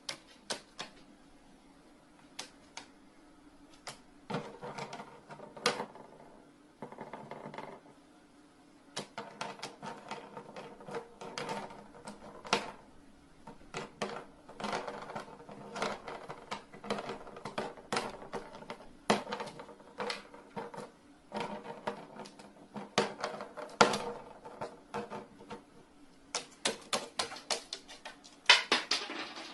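Rapid, irregular clicks and taps on a hard surface, coming in clusters, with a quick burst of them near the end.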